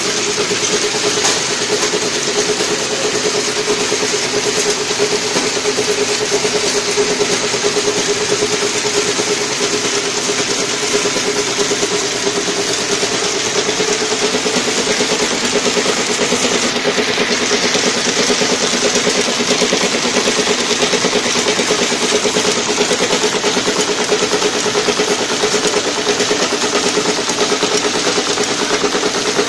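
Automatic high-speed toffee packing machine running steadily: a constant mechanical hum over an even machine noise, unchanging throughout.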